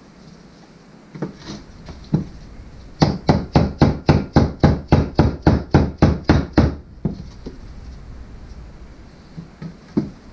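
Rubber mallet tapping a rear main seal home on a Ford 4.6 SOHC V8 block: a few scattered knocks, then a quick even run of about fifteen taps, about four a second, lasting nearly four seconds. One more knock comes near the end.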